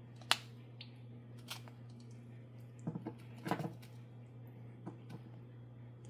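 Cut slabs of chalcedony and jasper clicking and knocking against each other as they are pulled apart by hand: one sharp click about a third of a second in and a cluster of knocks about three seconds in, over a faint steady hum.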